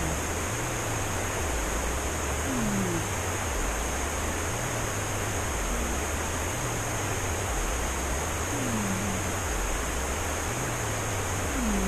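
A sleeping cat snoring. Each breath is a low rumble, repeating every few seconds, and some breaths end in a short falling squeaky tone.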